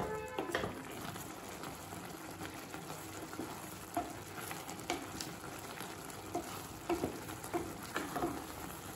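Wooden spatula stirring noodles and vegetables through hot masala broth in a pot on the stove: a steady sizzle under soft, wet stirring, with a few short scrapes of the spatula against the pot.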